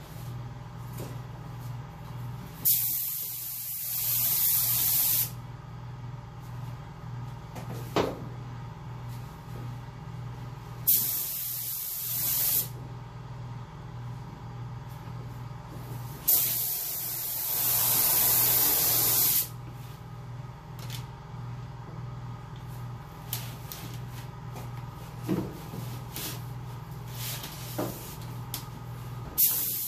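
Harbor Freight Spectrum paint spray gun hissing in three separate trigger pulls of a few seconds each, with another starting near the end. It is misting a light first coat at low air pressure. A steady low hum and a few clicks sit between the bursts.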